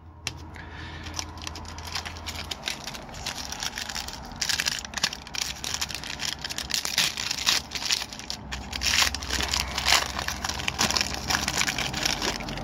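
Foil wrapper of a 1992-93 Upper Deck hockey card pack being torn open and crinkled by hand: a dense run of crackling crinkles that gets louder about four seconds in.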